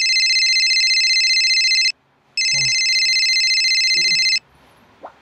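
Cell phone ringtone: a steady, high electronic ring that sounds twice, each ring about two seconds long, with a short pause between them.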